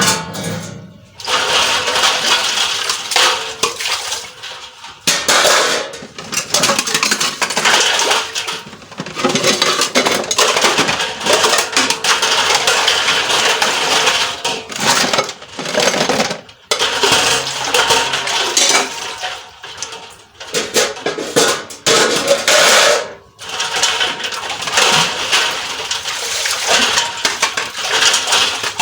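Dishes, pots and cutlery clattering and clinking, in stop-start spells with brief pauses.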